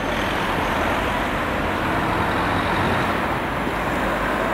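Diesel locomotive running steadily as it hauls a passenger train away, heard together with a steady rumble of background noise.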